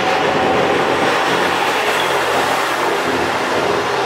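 JR Hokkaido H100 diesel-electric railcar moving past close along the platform, its engine running steadily with wheel noise on the rails.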